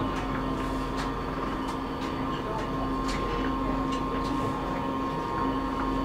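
Metro train noise: a steady hum and rumble with irregular light clicks.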